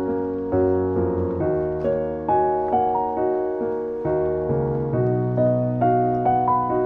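Background piano music: a calm melody of notes struck about twice a second over sustained bass notes.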